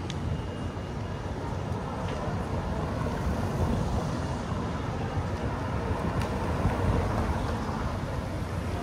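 Steady low rumble of outdoor background noise, with wind on the microphone.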